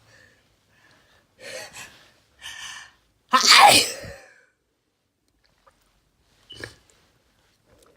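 A person sneezing: two short breathy intakes build up, then one loud sneeze about halfway through. A short, quieter sound follows near the end.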